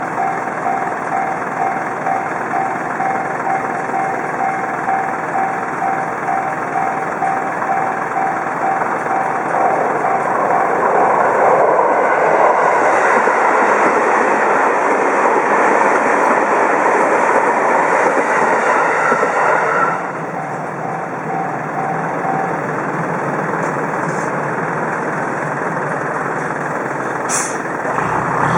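Japanese level-crossing warning bell dinging in a steady repeating rhythm. About ten seconds in, a train passes over the crossing and its running noise swamps the bell for about ten seconds. The bell is heard again briefly after the train clears, then stops.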